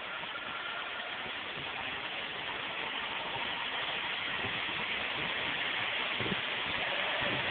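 Mercedes-Benz CLK 230 Kompressor's supercharged 2.3-litre four-cylinder engine running, gradually getting louder.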